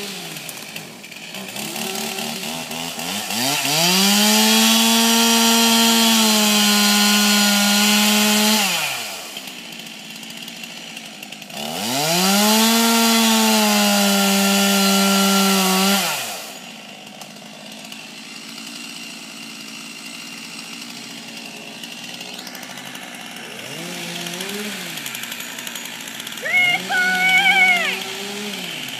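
Stihl 262 two-stroke chainsaw revved up to full throttle and held there for about five seconds, dropped back to idle, then revved and held again for about four seconds. It idles after that, with short blips of throttle near the end.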